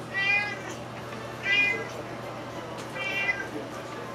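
Domestic cat meowing three times, about a second and a half apart, begging for the salmon being cut up.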